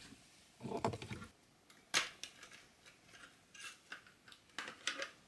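Light plastic clicks and rattles from handling a disassembled BMW E28 instrument cluster, its circuit board and white plastic housing, with a sharp click about two seconds in. A duller rustle of handling comes about a second in.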